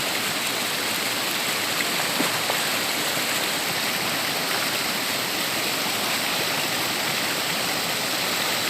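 Waterfall: a steady rush of falling water that does not let up.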